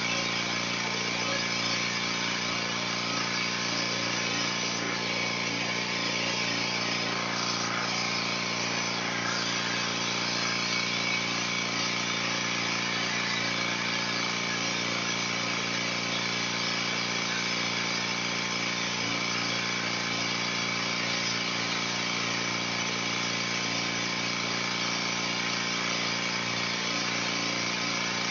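Pressure washer running steadily at an even, unchanging level.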